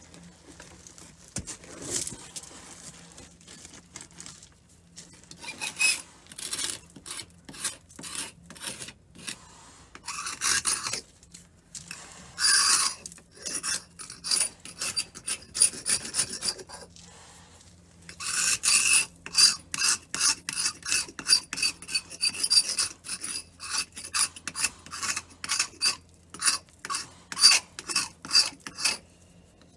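A hand tool scraping old paint and timber on a wooden boat's hull in short repeated strokes, some with a faint metallic ring. The strokes come irregularly at first, then settle into a quick steady run of about three a second after a brief pause.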